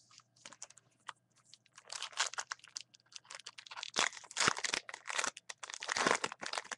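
A baseball card pack's foil wrapper being torn open and crinkled by hand, in irregular bursts of crinkling that are busiest about two seconds in and again from about four to six seconds in.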